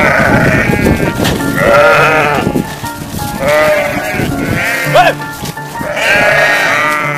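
A flock of sheep bleating, about five drawn-out bleats one after another, over background music.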